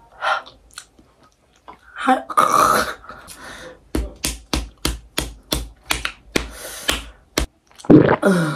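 A woman's pained, wordless vocal reactions to the burn of raw onion: a loud strained groan, then a quick run of about a dozen sharp knocks at roughly four a second, then another loud groan falling in pitch near the end.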